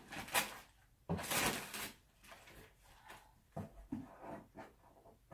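Wrapping paper and a cardboard gift box being handled: a short rustle near the start, a louder rustle of under a second about a second in, then a few softer scrapes and knocks of the box.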